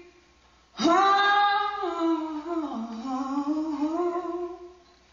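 A young man's voice singing one long wordless note, unaccompanied. It starts about a second in, wavers, dips in pitch, climbs back, and fades out near the end.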